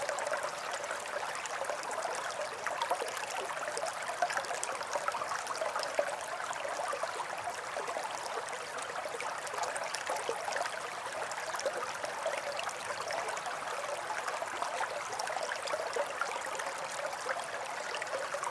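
A babbling brook: shallow running water burbling steadily, thick with small gurgles and splashes, at an even level throughout.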